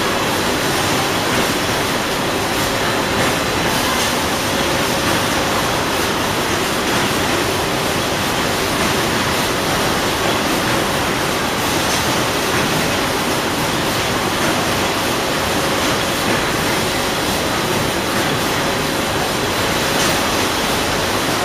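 Steady machinery noise of a running washing-powder filling and packing line and its conveyor belts: a dense, even hiss with faint steady hums under it.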